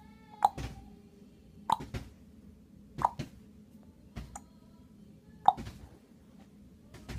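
Sharp double pops repeated six times, about one every second and a quarter, over the low steady hum of an air conditioner.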